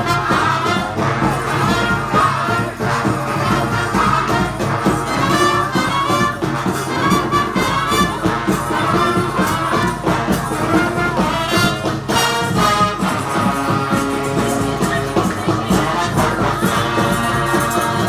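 Community street band of brass and percussion playing a lively tune, horns carrying the melody over steady drumming.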